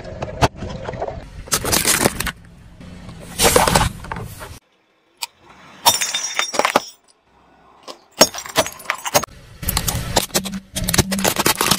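Car tyres rolling over and crushing plastic objects, a drink cup and a toy water gun among them: several separate bursts of cracking, crunching and breaking, with gaps between them.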